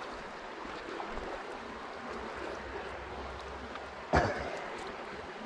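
Steady rush of flowing river water, with one sharp knock about four seconds in.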